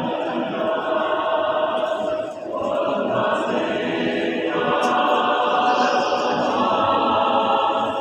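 Choir singing held chords together, with a brief break between phrases about two seconds in.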